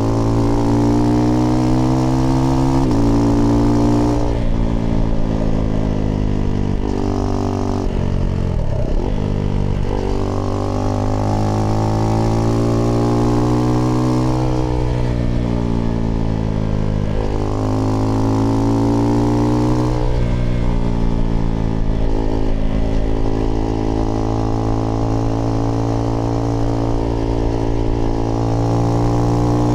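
Husqvarna Svartpilen 401's single-cylinder engine through an IxRace Mk.2 aftermarket exhaust, ridden with the revs repeatedly climbing and falling. There are sudden drops in pitch at gear changes and a slowdown with falling revs near the middle before it pulls away again.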